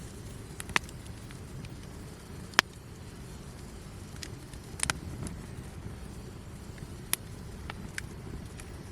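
Wood campfire burning with a steady low rush, broken by about six sharp pops and crackles from the wood, the loudest about two and a half seconds in.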